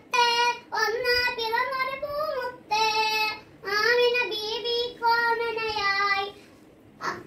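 A young girl singing a Malayalam devotional song in praise of the Prophet Muhammad, unaccompanied, in phrases of held notes with short breaths between; she breaks off for a moment about six seconds in and starts the next phrase near the end.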